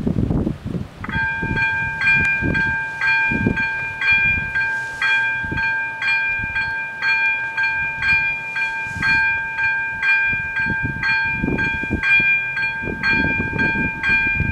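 Electronic warning bells of an AŽD 97 level crossing start about a second in and ring on steadily, about two strikes a second: the signal that a train is approaching. Wind gusts on the microphone underneath.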